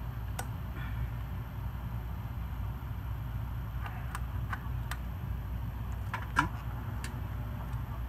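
Murray Feiss ceiling fan motor running with a steady low hum, while several sharp clicks sound from its switches being worked, the loudest about six and a half seconds in, as the reverse function is tried.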